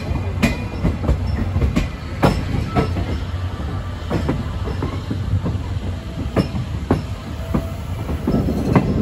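Railway carriage wheels rolling over rail joints and points: irregular sharp clicks over a steady low rumble, the rumble growing louder near the end.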